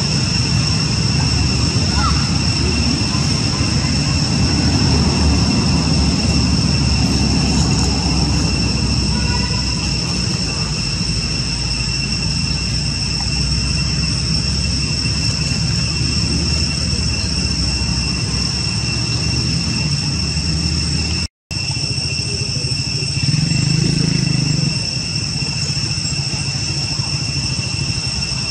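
Forest ambience: a steady high-pitched insect drone with a low rumble underneath.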